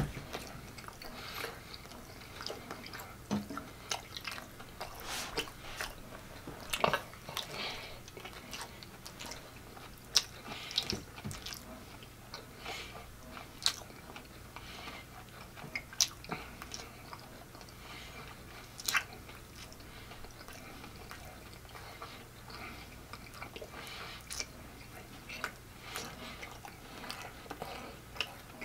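A person chewing a mouthful of barbecue pork-chop taco in a soft flour tortilla, with irregular wet smacks and clicks of the mouth.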